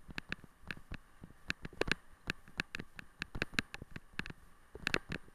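A wheeled dog-racing rig rattling and knocking as it jolts over a rutted dirt track: irregular sharp clicks, several a second, varying in loudness.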